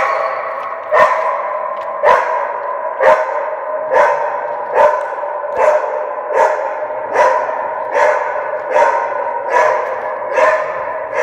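A dog trapped down a deep pit barking steadily, about one bark a second and slightly quickening. Each bark echoes and rings on in the shaft.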